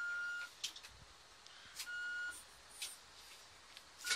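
Home-built 1:5 scale RC hydraulic excavator working under radio control: a steady high whine from its pump drive stops about half a second in and comes back briefly twice, near the middle and at the end, as the boom and bucket move. Sharp clicks and short hisses fall between the spells.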